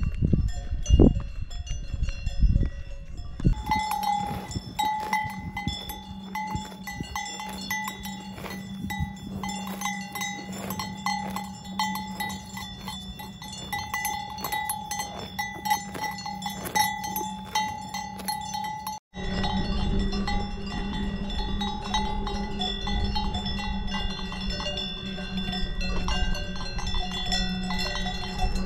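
Several cowbells on grazing cows clanking and ringing irregularly as the animals move their heads. The tone set changes after a brief break about two-thirds of the way through.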